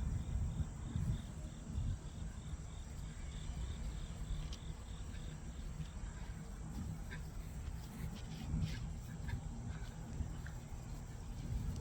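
A cricket chirping in an even pulse, about three chirps a second, which fades out about halfway through. It sits over a steady low rumble, with a few scattered short high chirps later on.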